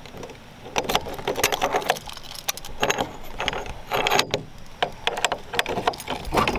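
Irregular jangling and clinking, as of keys, mixed with rubbing and clattering against the microphone as the camera is carried close to the body.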